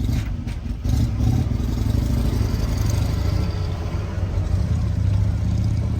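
A vehicle driving slowly: a steady low engine rumble with road noise.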